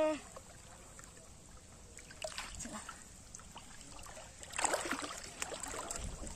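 Pond water sloshing and splashing around a person wading waist-deep and moving their hands through it, with a louder spell of splashing from about four and a half seconds in. It opens with the tail end of a short vocal exclamation.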